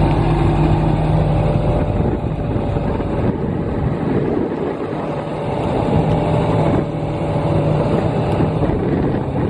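New Holland WE150B wheeled excavator's CNH diesel engine running while the hydraulics raise and extend the boom and stick. The steady engine hum changes, turning rougher and noisier, from about two seconds in to about seven seconds in.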